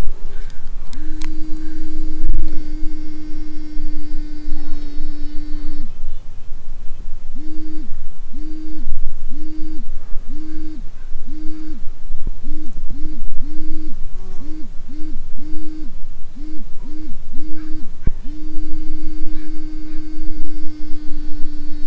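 Solar-powered screw-in mole repellent stake buzzing in the ground with a low steady hum for about five seconds, then a run of short pulsed hums, some quicker in succession, then a long steady hum again near the end, over a low rumble. It is stepping through its vibration modes after being switched on, the pattern meant to drive moles away.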